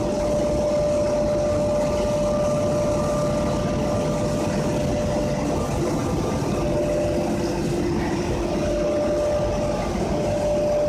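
Floating fish-feed pellet drying line running: rotary drum dryer, belt conveyor and blower making a steady mechanical drone with a constant whine, and a second, lower steady tone joining about halfway through.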